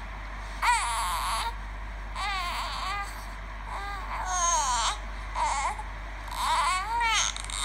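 A baby's recorded crying played back through a small device speaker: about five short wailing cries, each rising and falling in pitch, thin with no low end.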